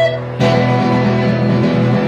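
Live band music led by guitar: held chords ringing over a steady low bass note, with a new chord struck about half a second in.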